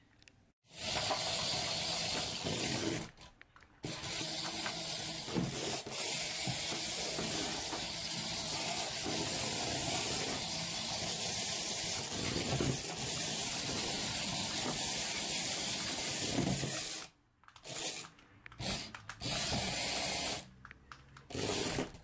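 Remote-control toy poop running, giving a long steady hissing noise with a short break about three seconds in, then stopping and starting in short bursts near the end.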